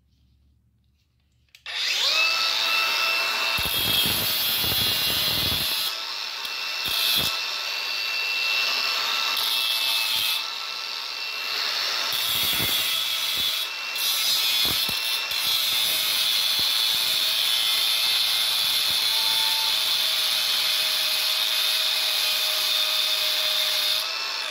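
Electric angle grinder starts up about two seconds in and runs with a steady high whine, its disc grinding against a piece of metal exhaust pipe to clear out old weld. The level dips briefly a few times as the disc eases off the metal.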